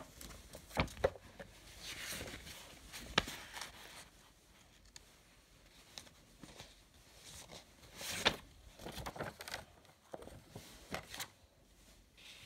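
Handling noise close to the microphone: a few sharp taps and clicks, the strongest about a second in and three seconds in, with short rustles, likely from paper.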